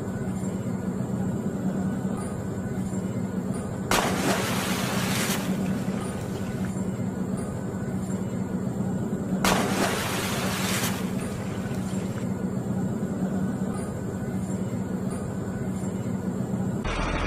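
Steady, low truck-engine drone dubbed over a toy dump truck, with two loud bursts of hissing, about four and nine and a half seconds in, each lasting about a second and a half.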